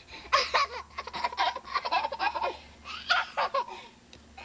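Children laughing in quick repeated bursts, dying down near the end.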